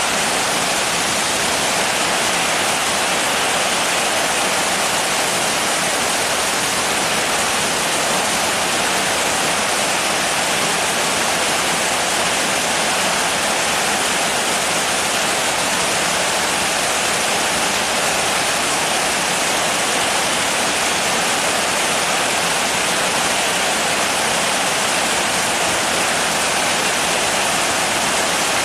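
Steady heavy rain: a dense, even hiss with no single drops or gaps standing out.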